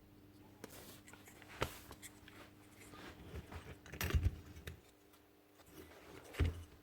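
Scattered knocks and clicks of rotary hammer parts being handled and fitted together on a workbench, with the loudest cluster about four seconds in and a single knock near the end.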